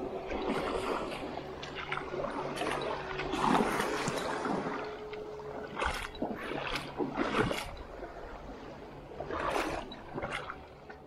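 Small sea waves lapping and splashing against shore rocks at the water's edge, with several louder splashes.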